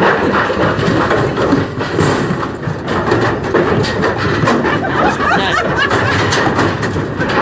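Young bulls' hooves clattering and thumping as the cattle scramble, a dense run of knocks, with crowd chatter underneath.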